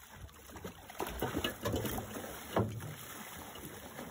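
Water splashing and sloshing as a gaffed, harpooned halibut thrashes at the side of a boat, with a single sharp knock about two and a half seconds in.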